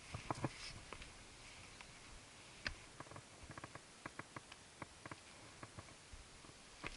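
Footsteps of a hiker on a rocky trail: irregular light clicks and scrapes of boots on stone and loose rock, with a louder cluster just after the start.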